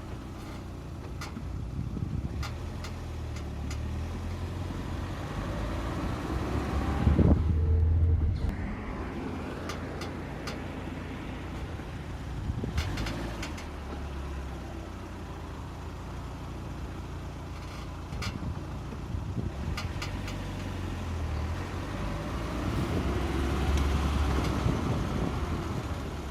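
Lada Granta FL car moving off and stopping, its low running noise swelling twice, with short creaks from the front-left suspension. The creak comes from the suspension rubbing against an engine skid plate fitted by the dealer.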